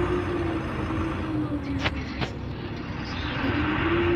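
Güleryüz Cobra GD-272 city bus running, a steady low rumble with an engine note that rises and falls gently. Two sharp clicks come about two seconds in.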